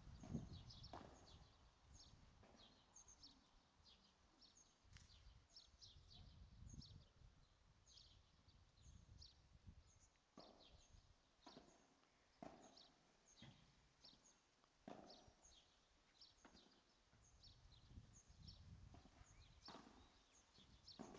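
Faint padel rally: the ball knocked back and forth by the rackets and off the court walls, short sharp knocks coming about once a second at times, irregular elsewhere.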